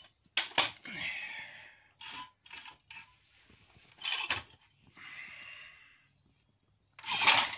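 Handling noise: a few sharp clicks and knocks and several short rustling, breath-like hisses, with quiet gaps between them.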